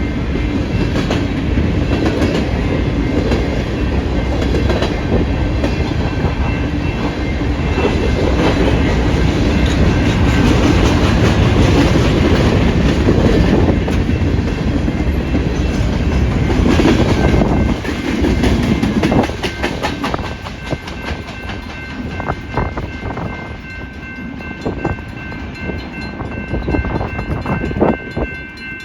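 Freight train of grain hopper cars rolling past, its wheels clicking over the rail joints, with wind buffeting the microphone. The heavy rumble drops off after about eighteen seconds, leaving separate wheel clicks as the cars thin out.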